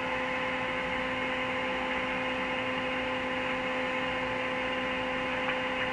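Steady static hiss with a constant hum from a two-way radio receiver's speaker on an open channel, with no one transmitting.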